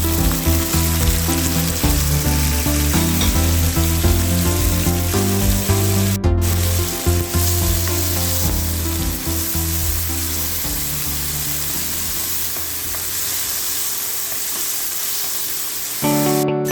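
Food frying in a hot pan, with a steady sizzle heard through background music. The sound cuts out briefly about six seconds in.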